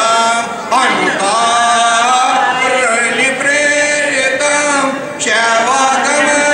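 A man's voice chanting devotional verses to a slow sung melody, with long held notes and short breaks for breath about a second in and again about five seconds in.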